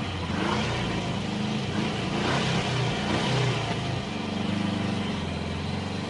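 Car engine running with steady road noise while driving, the engine note shifting up and down a little.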